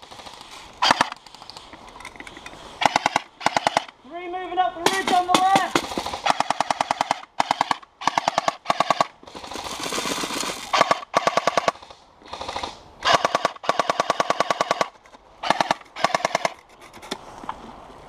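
Airsoft machine gun firing full-auto in about a dozen short, rapid bursts with brief pauses between them.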